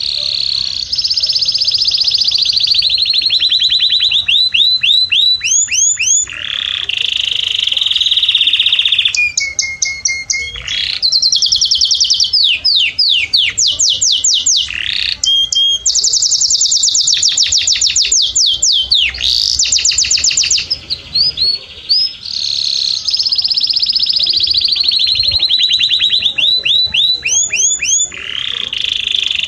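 Domestic canary singing a loud, continuous song of fast trills and rapidly repeated notes, switching to a new phrase every few seconds.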